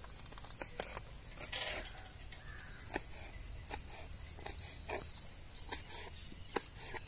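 Scattered light clicks and taps of hands gathering chopped coriander and handling a steel plate and bowl, with small birds chirping in short high calls in the background.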